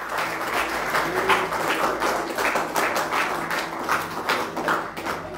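Congregation clapping: many hands applauding, dense and uneven, with a faint steady low tone underneath.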